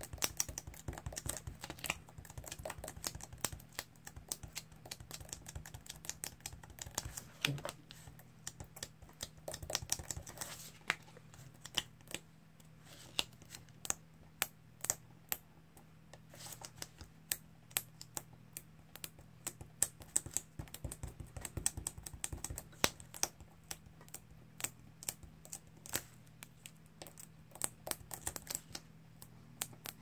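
Teeth of a plastic comb stabbed again and again into a sheet of polystyrene foam board, stamping a rough plaster-like texture: irregular quick clicks and taps, sometimes in rapid runs.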